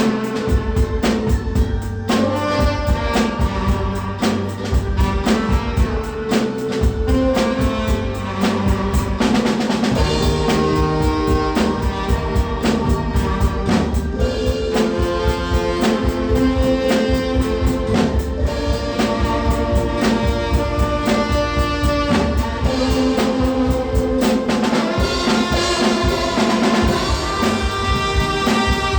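Tenor saxophone playing a melody of held, pitched notes over a steady drum-kit beat.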